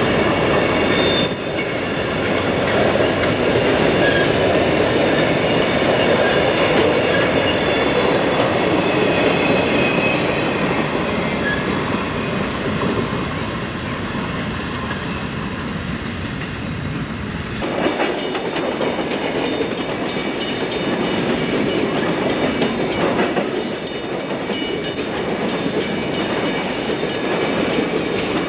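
Freight train of coal hopper cars rolling past, a steady rumble of steel wheels on the rails. About two-thirds of the way through, the sound cuts to another freight train's cars passing.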